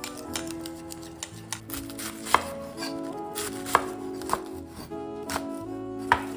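Knife chopping vegetables on a cutting board in irregular strokes, a few of them sharply louder than the rest, over background music.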